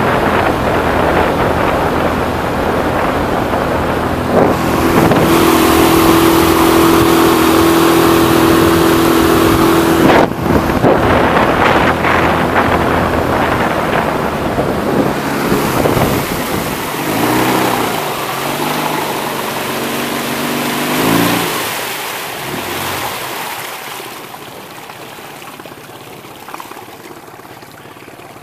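Mercury 9.9 tiller outboard motor running the boat along, with wind and water rushing past. Its pitch wavers up and down a few times about two-thirds of the way through, then it is throttled back and the sound falls to a much quieter idle over the last several seconds.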